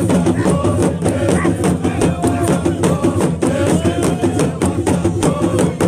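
Drums beaten in a fast, even rhythm with a group of men chanting over it.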